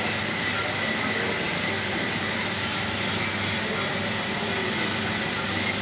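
Steady mechanical running noise with a faint constant high whine, even in level throughout.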